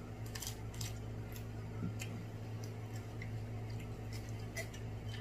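Crab leg shells being cracked and picked apart: irregular sharp clicks and snaps over a steady low hum.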